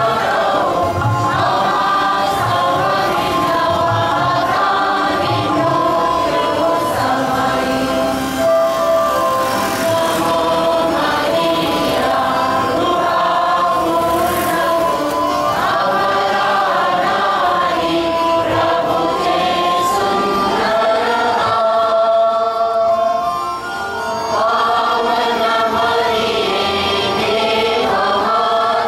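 A choir singing a Christian hymn, with several voices sustaining and moving through melodic lines without a break.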